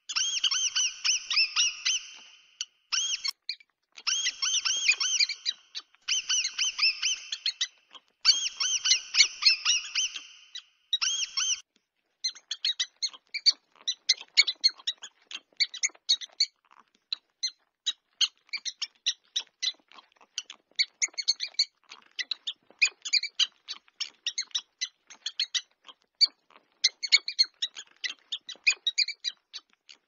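Mouse squeak sound effects: rapid high-pitched squeaking in runs of about two seconds with short breaks during the first half, then quicker, shorter scattered squeaks and chirps for the rest.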